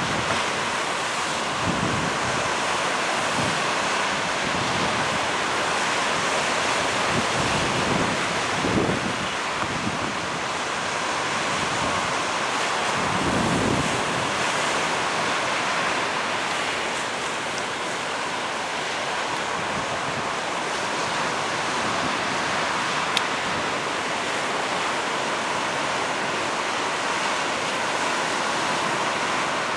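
Ocean surf: waves breaking and washing in a steady rush. Wind buffets the microphone with low rumbling gusts through the first half, easing after that.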